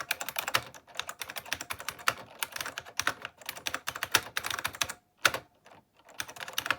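Fast typing on an IBM Model M's buckling-spring keys, a dense run of loud clicks. The typing pauses for about a second near the end, then starts again.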